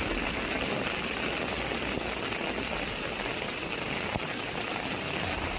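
Steady rushing of a swollen, muddy floodwater river, an even wash of water noise.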